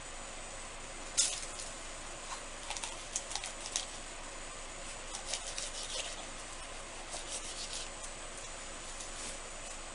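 Light clicks and short scratchy rubbing sounds from hand-work with small craft tools and containers, in irregular clusters over a steady faint hiss. The sharpest click comes about a second in.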